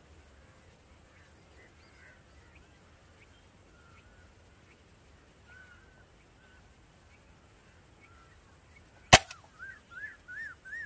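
A single sharp shot from a .177 Precihole NX-100 break-barrel air rifle about nine seconds in, after a long stretch with only faint scattered chirps. Right after the shot comes a run of short high calls, each rising and falling, about four a second.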